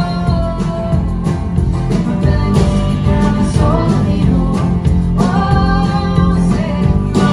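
Live folk band playing: strummed acoustic guitar, upright bass and drum kit, with a woman singing at the microphone.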